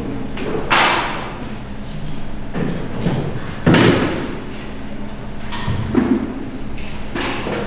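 A few scattered thumps and knocks over a steady low hum, the loudest about halfway through.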